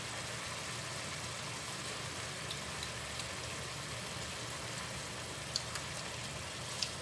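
Julienned carrots, onions and peppers simmering in sweet-and-sour vinegar sauce in a wok, a steady sizzling hiss. A few light clicks of a wooden spoon against the pan come near the end as it is stirred.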